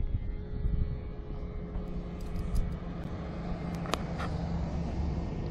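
A motor vehicle's engine running with a steady low rumble and hum. A single sharp click comes about four seconds in.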